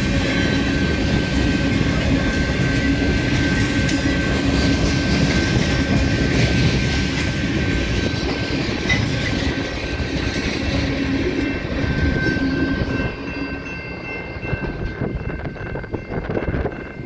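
Freight train of tank cars rolling past: a steady rumble of steel wheels on rail with clicks over the joints and a thin steady high tone. It grows quieter after about thirteen seconds as the last cars move away.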